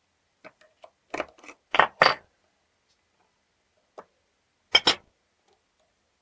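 Sharp metal clicks and clacks from the steel case and small internal parts of a GU multipoint mortise lock being handled during reassembly: a quick run of knocks in the first two seconds, one small tick at about four seconds, and a loud double clack near five seconds.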